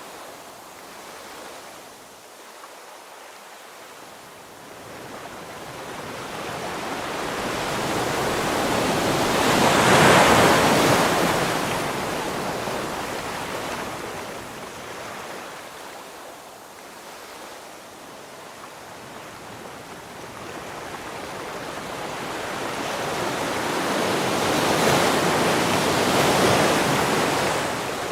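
Ocean waves breaking on the shore: a rushing hiss that swells to a peak about ten seconds in, ebbs, and swells again near the end.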